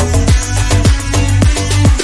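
Upbeat electronic background music with a deep bass drum on a steady beat, about two strokes a second.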